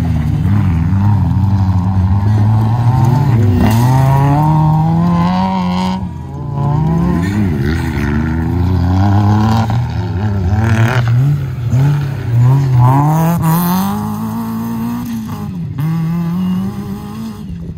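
Suzuki Jimny's engine revving hard under load as it climbs a steep dirt slope, its pitch rising and falling again and again as the driver works the throttle, with a brief lull about six seconds in.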